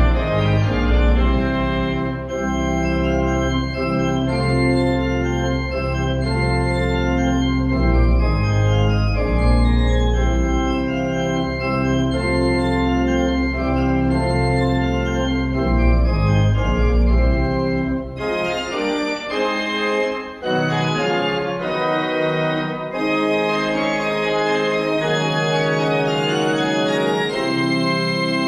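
Organ playing a trumpet tune, with sustained chords over deep bass notes. The bass drops out about two-thirds of the way through, leaving a lighter upper texture.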